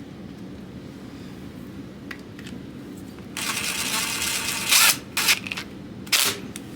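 A handheld power driver running screws into the engine case. It runs in one spurt of about a second and a half, then in two or three short spurts, over a steady low hum.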